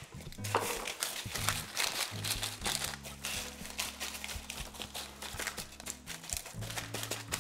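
Ceramic baking beans clicking and rattling against one another as hands spread them over baking paper in a pastry-lined flan tin, with the paper crinkling. Background music runs underneath.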